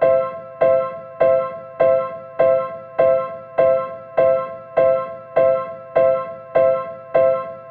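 Recreated Seibu Railway level-crossing alarm: an electronic crossing bell striking over and over, about every 0.6 seconds. Each strike is a two-tone ding that fades before the next.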